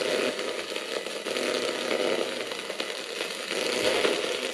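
NanocomS Coffin Edition spirit box sweeping through radio stations: a continuous choppy buzz of static chopped into fast fragments as it scans.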